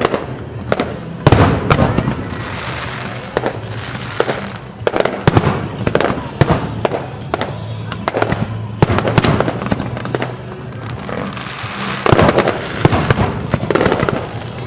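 Fireworks exploding in rapid succession, sharp bangs and crackling, with the heaviest volleys about a second in and again near the end, over music playing.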